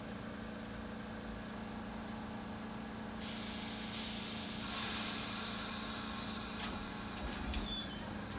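R46 subway train's air brakes hissing over the steady hum of the car's equipment: the hiss starts about three seconds in and grows louder about two seconds later, with a few clicks near the end.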